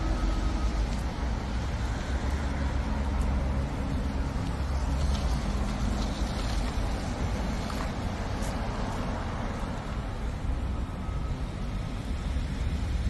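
Tesla Model Y electric car rolling slowly past at low speed: steady tyre noise over a low rumble, with no engine sound and a few faint clicks.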